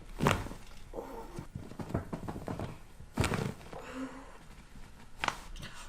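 Three sharp thunks during a chiropractic adjustment, about three seconds and then two seconds apart.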